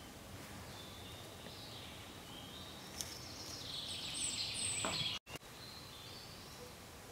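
Faint woodland ambience: a steady hiss with scattered high bird chirps, a louder burst of twittering about four seconds in, and the sound cutting out for a moment just after five seconds.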